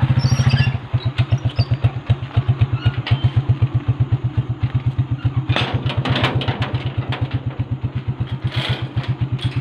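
Small engine running with an even throb of about eight to nine pulses a second, easing to a slower beat just under a second in. A few brief clatters come over it in the middle and near the end.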